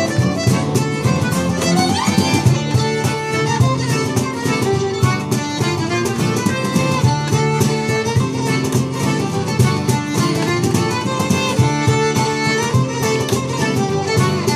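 A small acoustic band playing an instrumental passage. A fiddle leads over strummed acoustic guitars and a button accordion, with a steady strumming rhythm.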